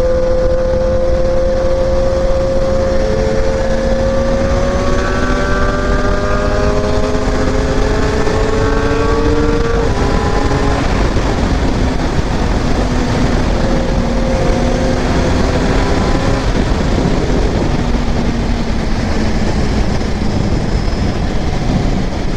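Kawasaki motorcycle engine under way, with heavy wind rush on the microphone. The engine note climbs slowly for about ten seconds, drops sharply, then holds fairly steady at cruising speed.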